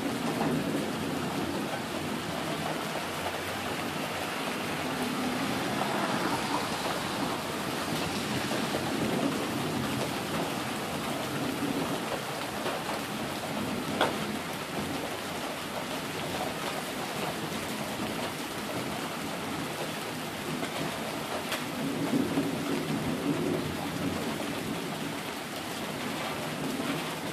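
Steady rain falling on pavement and lawns, with low rumbles of thunder swelling a few times. There is a single sharp tick about halfway through.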